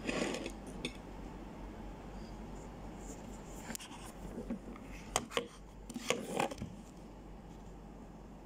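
Handling noise: scattered clicks, knocks and rubbing as the recording phone is touched and a knife and fork are moved on a ceramic plate, with a cluster right at the start and louder clicks about five to six and a half seconds in. A faint steady low hum runs underneath.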